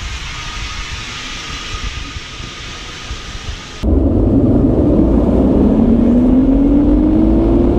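Zipline trolley released down the cable: about four seconds in, a loud wind rush and the pulley's whine start suddenly, the whine rising steadily in pitch as the rider gathers speed.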